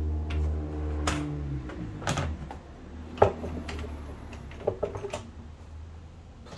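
Plastic intake-snorkel clips being pushed back into place by hand: a handful of separate sharp clicks and knocks, the loudest a little past three seconds in. A low hum fades out over the first two seconds.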